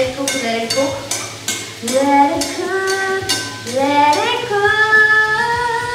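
Metal spatula scraping and knocking in a steel wok as mushrooms stir-fry with a light sizzle, under a wordless sung melody whose notes glide and are held for a second or more.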